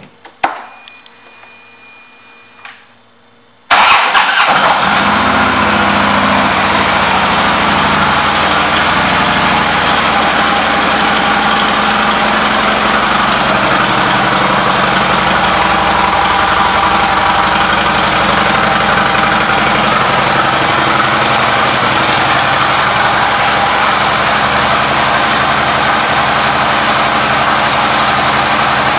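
A 2012 Harley-Davidson Road King Police motorcycle's V-twin engine starting about four seconds in, after a few soft clicks. It is briefly louder as it catches, then settles into a steady idle.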